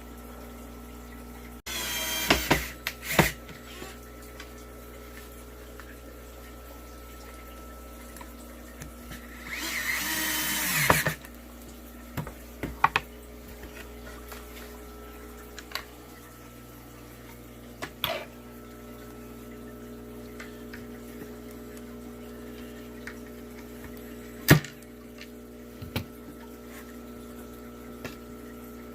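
DeWalt DCF682 8 V gyroscopic cordless screwdriver driving screws into particle board in two short runs, about two seconds in and around ten seconds in, the second winding up in pitch. Between them come scattered clicks and knocks, one sharp knock louder than the rest, over a steady background hum.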